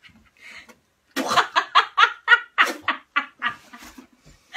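Hard laughter, a quick run of loud ha-ha bursts starting about a second in and lasting a few seconds.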